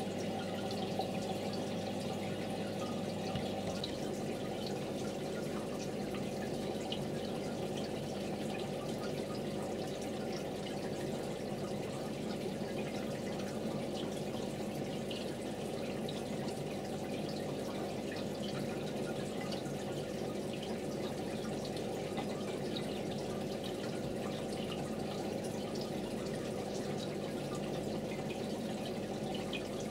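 Aquarium water trickling and dripping steadily, with many small drip-like ticks over a constant low hum.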